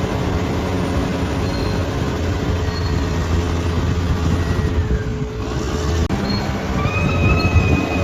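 Bulldozer's diesel engine running steadily, with a high squeal joining in about seven seconds in.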